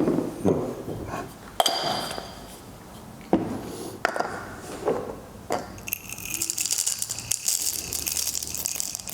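Hand coffee grinder being handled as its grind setting is changed: scattered short clicks and knocks, then from about six seconds a steady hissing rattle.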